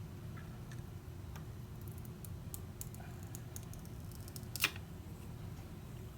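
Faint crackles and ticks of an old, cracked screen protector being peeled off a phone's glass screen, with one sharper snap about four and a half seconds in.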